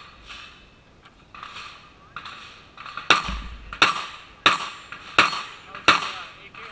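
Five gunshots in steady succession, about two-thirds of a second apart, each a sharp, loud crack.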